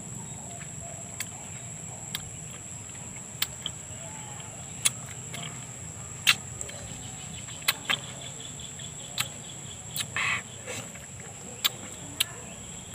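Close-up eating sounds of ripe mango being bitten and sucked off the fruit: about a dozen sharp, wet mouth clicks spread through, with a brief slurp about ten seconds in. Behind them is a steady high-pitched drone of insects.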